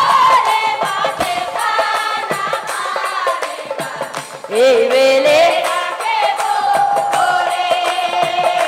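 Live Assamese nagara naam devotional folk music: a melody that slides between notes and holds a long note near the end, over a run of percussion strikes. The music dips briefly about halfway, then comes back with a rising slide.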